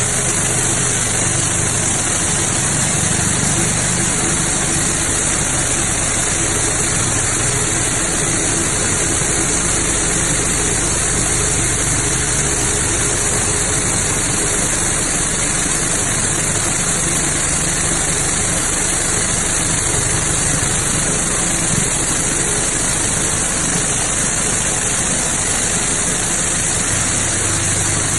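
Toyota 4A-GE twin-cam inline-four engine idling steadily, under a constant high hiss.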